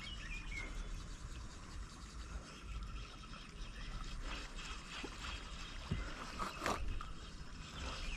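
Faint ambience with scattered small knocks and scrapes of handling in a small fishing boat over a low steady rumble; the sharpest knock comes about two-thirds of the way through.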